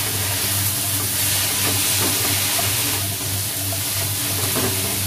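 Shredded cabbage and carrot sizzling and steaming in a stone-coated wok after a splash of water, a steady hiss, while a spatula stirs and tosses them with a few light scrapes.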